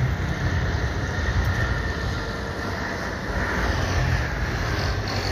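Boeing 777-300ER's GE90-115B turbofan engines at takeoff thrust as the jet rotates and lifts off: a steady jet noise with a heavy low rumble.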